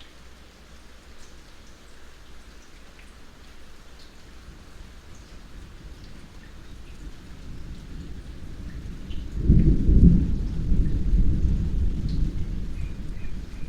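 Light rain falling with scattered drips, and a low rumble of distant thunder that swells past the middle, peaks, then slowly rolls away.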